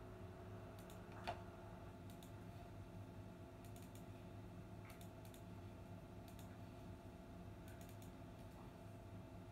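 Near silence: a steady low electrical hum with a few faint, scattered clicks, one sharper tick a little over a second in.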